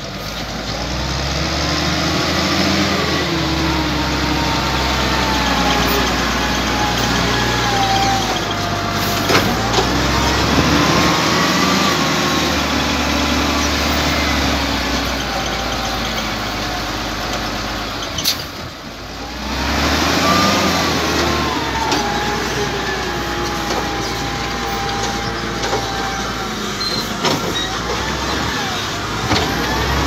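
XCMG LW300KN wheel loader's diesel engine running and revving up and down as the machine works, with a whine that rises and falls along with it. The sound dips briefly about two-thirds of the way through.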